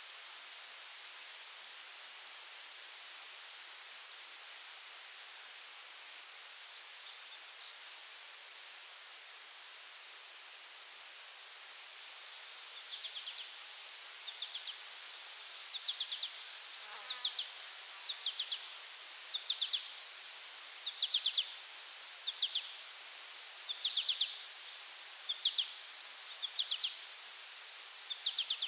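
Chorus of forest insects: a steady high-pitched drone with faint fast chirping over it. From about halfway, a louder call repeats roughly once a second, each a short buzzy trill.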